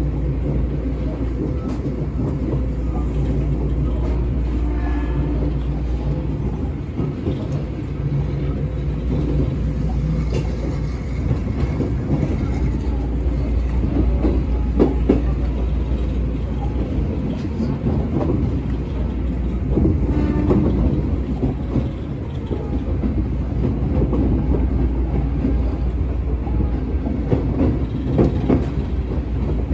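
Interior running noise of a former Tokyo Metro 6000 series electric train: a steady rumble of wheels on rail, with sharp clacks as the wheels cross rail joints and points, and a traction-motor hum that comes and goes.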